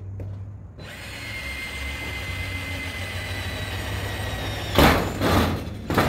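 Black+Decker cordless drill boring into a thin sheet-metal shed door: steady drilling with a thin high squeal from the bit for about four seconds, then two louder, noisier bursts near the end.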